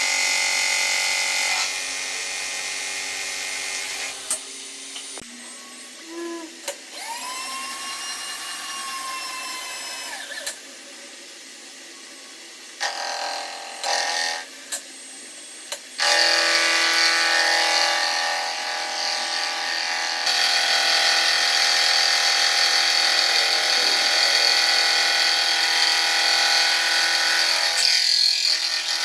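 Electric power tools running in several separate bursts, a motor whine with steady tones that starts and stops. One run in the middle rises in pitch and sinks back, and the longest, loudest run fills the second half.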